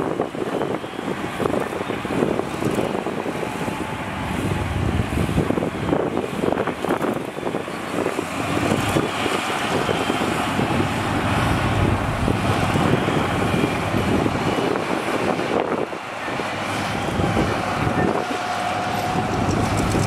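Heavy diesel earthmoving machinery running steadily under load, with irregular knocks and clanks throughout and a brief easing about sixteen seconds in.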